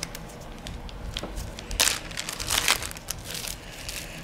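Plastic wrap crinkling under gloved hands, in uneven rustling bursts, the loudest about two seconds in and again a little after.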